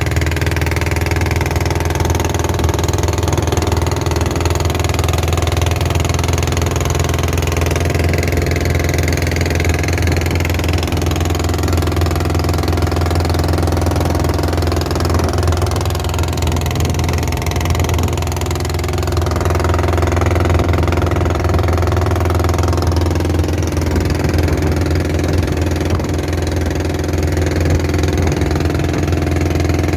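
Long-tail boat engine running steadily while the boat is under way, a loud constant drone with a slight dip in level about eighteen seconds in.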